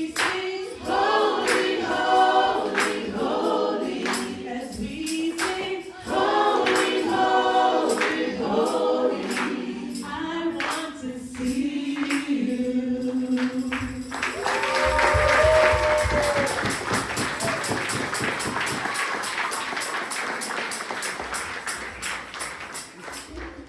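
A choir singing in harmony, ending on a held note about fourteen seconds in as the audience breaks into applause, which fades out near the end.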